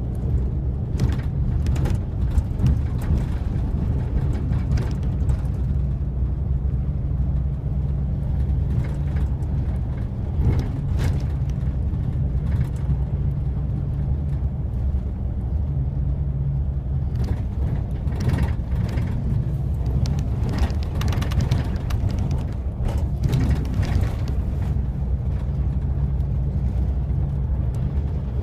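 Bus cabin noise while driving: a steady low rumble of engine and road noise, with scattered clicks and rattles, more of them in the second half.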